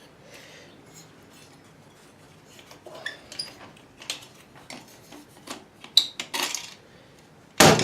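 Metal clinks, scrapes and knocks as a TV aerial is worked off its glass-lifting suction-handle mount, with scattered small clicks and a sharp loud knock near the end.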